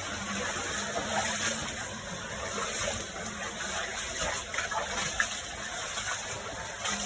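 Water running and gushing steadily in a flooded waterfall cave.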